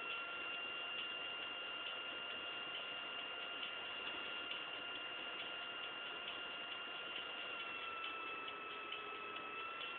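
A steady high-pitched electronic whine at two pitches, wavering slightly, over a hiss with faint regular ticking; no speech or music.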